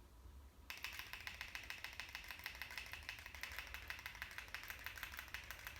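Rapid, even clicking that starts abruptly about a second in and keeps a steady fast tick, from the garage door opener as the button is pressed while the opener is in lock mode, so the door does not open.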